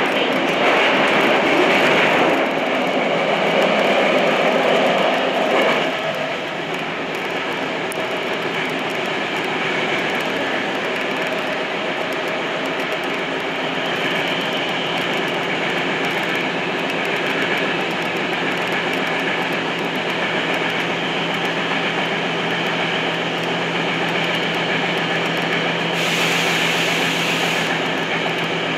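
Tokyo Metro Namboku Line subway train running through a tunnel, heard from inside the car: a steady rumble of wheels on the rails, louder for the first six seconds, then settling into an even drone with a low hum. A short hiss comes in a couple of seconds before the end.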